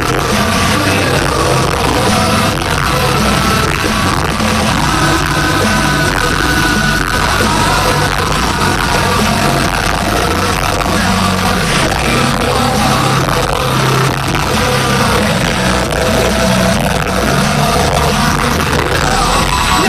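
Loud live rock music with a singer, recorded on a phone that distorts under the volume.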